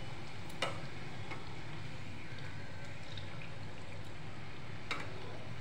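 Puris deep-frying in hot oil in a steel kadhai, a steady sizzle, with two sharp clinks of the perforated steel slotted spoon against the pan: one about half a second in and one near the end.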